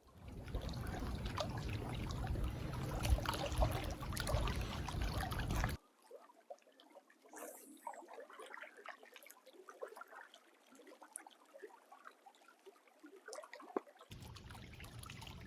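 Faint trickling and lapping water, with a low rumble for about the first six seconds that then drops away, leaving scattered small splashes and ticks.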